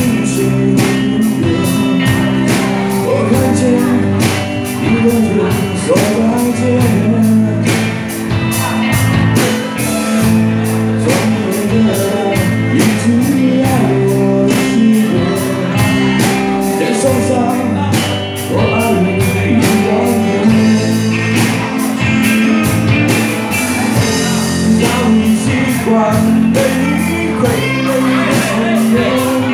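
Live band performing a song: a lead singer over a steady drum beat and sustained bass and accompaniment.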